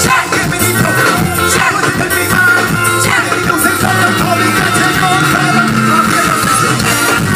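Live soca music: a band playing a steady, driving beat with a singer over it, played loud.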